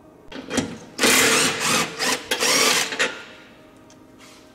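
A power tool running in several short bursts, a fast mechanical rattle, lasting about two seconds.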